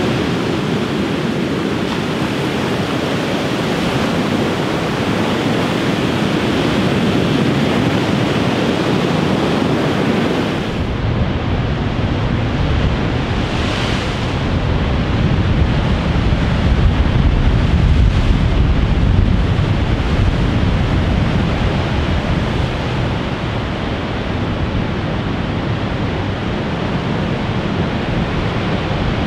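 Large ocean surf breaking and washing up over a sandy beach close by, a steady rushing wash. About eleven seconds in it gives way to a deeper rumble of the surf from farther off, with wind buffeting the microphone.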